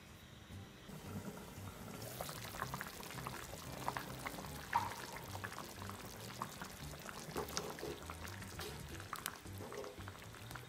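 A pot of thick sambar (lentil and vegetable curry) bubbling as it simmers, with scattered soft pops and crackles of bursting bubbles; the vegetables are being cooked until tender.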